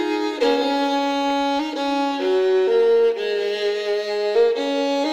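Fiddle playing a slow melody of held notes in the instrumental part of a country lullaby.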